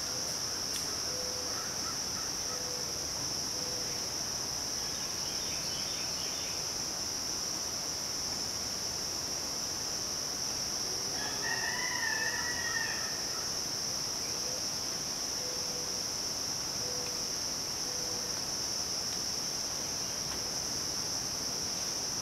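Steady high-pitched drone of midsummer insects, with a rooster crowing once, about two seconds long, around halfway through. Faint short repeated bird notes come before and after the crow.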